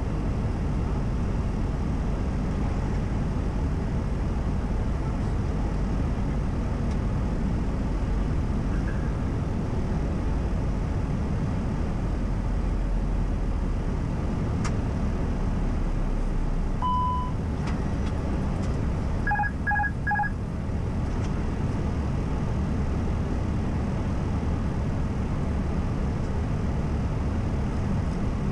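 Steady rush of airflow and engine noise heard from the cockpit of an Airbus A320 in flight. A little past halfway there is one short beep, and a couple of seconds later three quick beeps.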